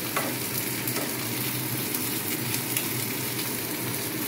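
Potatoes, drumsticks and tomato sizzling and bubbling in a kadai of freshly added water and oil while a spatula stirs them, with a few light scrapes of the spatula against the pan.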